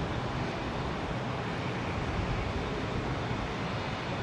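Steady rushing noise with an uneven low rumble: wind buffeting the microphone outdoors.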